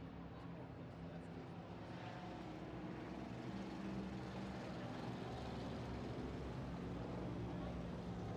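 Engines of several dirt-track street stock cars running at slow caution pace under a yellow flag, a steady low drone that grows a little louder about halfway through.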